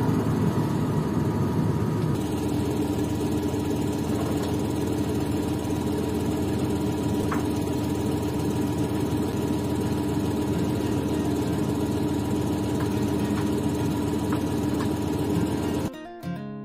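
Farm tractor's diesel engine running steadily at a constant speed, a low even drone, cutting off abruptly near the end.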